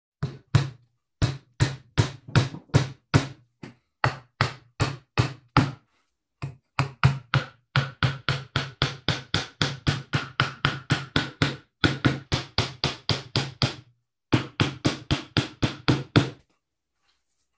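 Steel claw hammer striking nails into a pine board: sharp blows about two to three a second, in several runs with short breaks. Through the middle stretch a steady ringing tone sounds under the blows, and the hammering stops shortly before the end.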